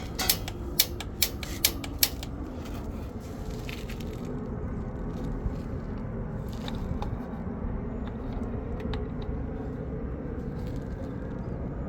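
Piezo igniter on a gas water heater clicking about five times in quick succession while the pilot is being lit, followed by a steady low rushing noise.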